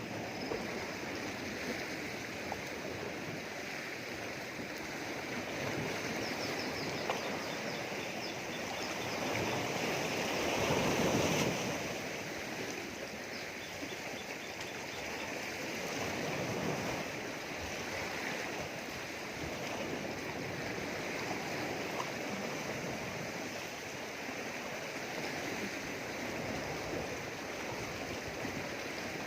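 Sea waves washing against rocks: a continuous rush of surf, with one wave swelling loudest about ten to twelve seconds in and a smaller surge around seventeen seconds.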